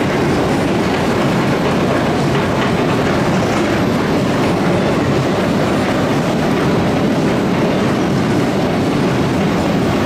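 Roller coaster train being hauled up a Gerstlauer Infinity Coaster's vertical chain lift hill: the lift runs loud and steady, with no break, as the car climbs.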